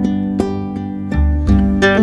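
Background music: plucked string notes over low bass notes, in an even rhythm.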